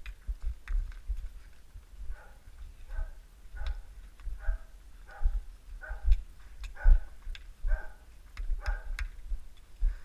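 Footsteps of someone walking on snowy, frozen ground at a steady pace, roughly one step every 0.8 seconds, each footfall a short crunch with a low thump.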